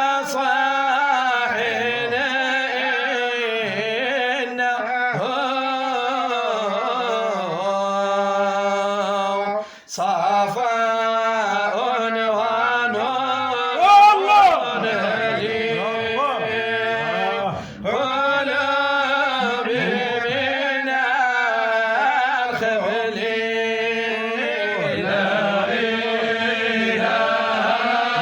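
Arabic Sufi devotional chanting: a male voice singing a qasida in long, melismatic held notes. There is a brief break about ten seconds in and a louder swell about fourteen seconds in.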